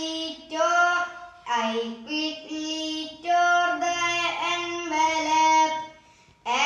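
A girl singing solo without accompaniment, holding long sung notes in several phrases, with a short breath pause near the end.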